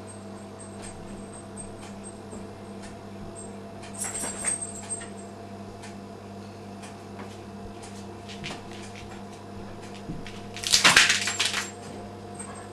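A cat hissing once, loud and about a second long, near the end, over a steady low hum and faint ticks.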